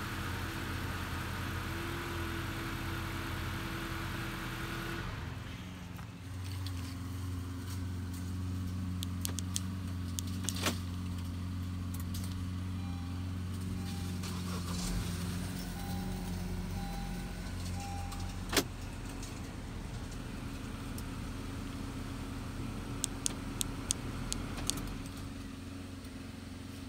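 Honda Accord engine idling steadily after a remote start from the factory key fob. About five seconds in, the sound moves from outside the car to inside the cabin, where sharp clicks, a jingle of keys and a few faint short beeps come over the idle.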